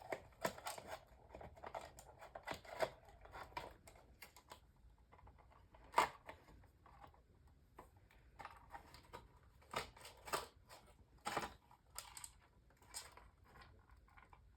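Irregular plastic clicks, knocks and rattles as a small fan heater's plastic housing is pried apart and its pieces handled, with a few sharper knocks in the second half.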